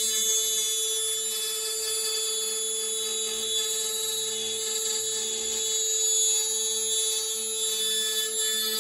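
CNC router spindle running with a steady high whine while its bit cuts the outline of a wooden serving board, the gantry feeding it slowly along the cut.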